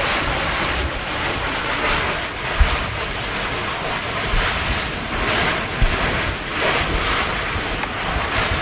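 Surf washing against the shore in slow swells, with wind buffeting the microphone and a couple of brief low thumps.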